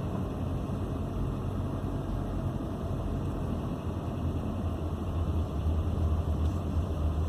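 Car interior noise while driving slowly: a steady low rumble of engine and tyres, rising slightly in level near the end.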